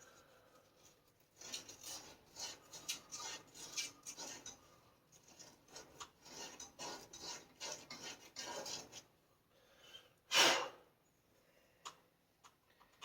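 Copper pipe end being scrubbed clean with an abrasive before soldering, two runs of quick back-and-forth rasping strokes. A single short, loud burst of noise about ten seconds in.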